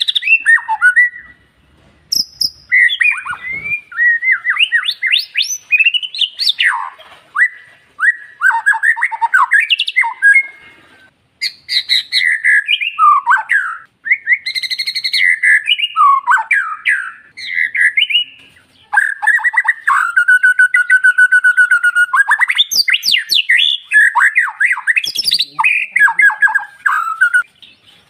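White-rumped shama (murai batu) singing a fast, varied song of whistles, trills and rapid chattering phrases, broken by brief pauses, with one long steady whistled note about two-thirds of the way through.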